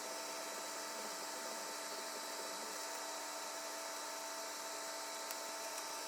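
Steady hiss with a faint, even electrical hum; no distinct events.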